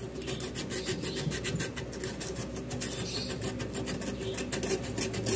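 Fine sandpaper rubbed back and forth in quick, even strokes on a rice cooker's copper switch contacts, scrubbing off the burnt black deposit. The dirty contacts keep the cooker stuck on warm, so they are being cleaned until shiny to make contact again.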